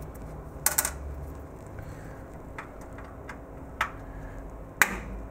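Screwdriver clicking on the mounting screws and metal bracket of the tape library's rail drive motor as it is unscrewed: a quick rattle of clicks about a second in, then single sharp clicks spaced about a second apart, the loudest near the end.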